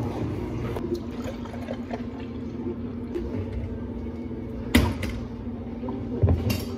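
Liquid pouring and filling a tall drink cup over a steady hum, with one sharp knock about five seconds in and a couple of dull thumps near the end.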